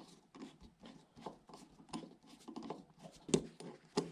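Long flathead screwdriver backing out the grip screw of an AR-15 lower receiver: a run of small, irregular metal clicks and scrapes, with one sharper click a little after three seconds in.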